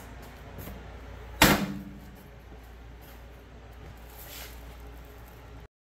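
Steel engine cover of an AGT QH12 mini excavator being shut: one loud metallic bang about a second and a half in, with a short ring after it.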